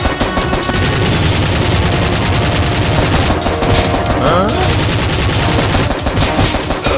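Dubbed-in machine-gun sound effect: rapid, continuous automatic fire, with a short gliding sound about four seconds in.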